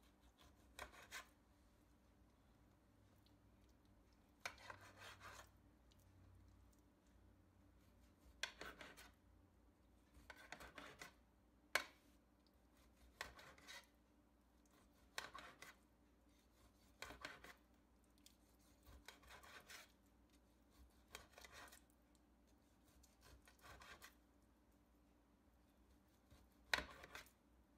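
Knife slicing raw chicken breast on a glass baking dish: about a dozen faint scraping strokes, one every second or two.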